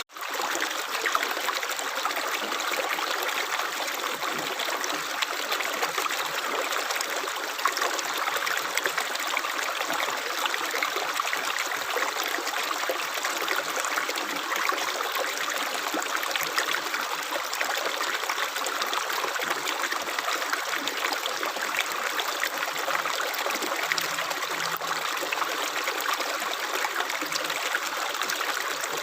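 Running water of a small stream trickling and splashing steadily, a dense patter of small splashes. It drops out for an instant at the very start.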